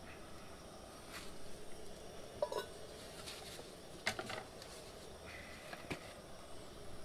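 Cast-iron skillet and its heavy iron lid being handled on a gas camp stove: the lid is lifted off and set aside, giving a few light knocks and clinks of cookware spread over several seconds.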